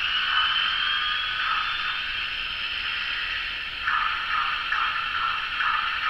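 Factory-fitted Paragon 3 DCC sound decoder in a BLI USRA N scale steam locomotive playing standing sounds through its small speaker. A steady steam hiss runs throughout, and a high whine, typical of the generator winding up, finishes rising in the first second or so. From about four seconds in comes a rhythmic pumping of about two to three strokes a second, typical of the air pump.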